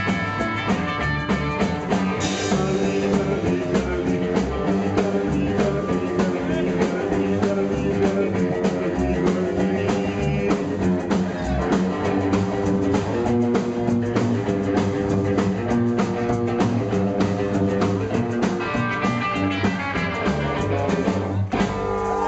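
Live rockabilly band playing: electric guitar, acoustic guitar, upright double bass and drum kit. The song ends about a second before the end and the crowd starts cheering.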